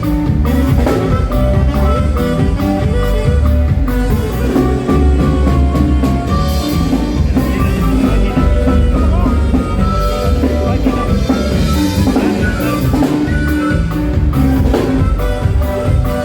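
Live saxophone-led norteño band playing an instrumental polka, with a steady quick drum beat and bass underneath the melody.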